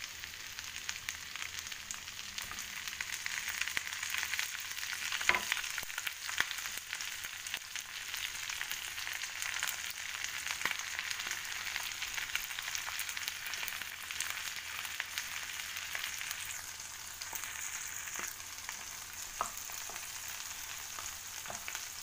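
Whole raw prawns frying in bubbling melted butter with onion in a nonstick frying pan, a steady crackling sizzle. A few sharp clicks stand out, the loudest about five seconds in.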